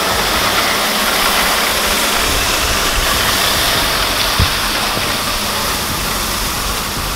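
Dump truck's diesel engine running as crushed stone pours from the raised bed's open tailgate in a steady rushing rattle while the truck creeps forward spreading it. A single short thump about four seconds in.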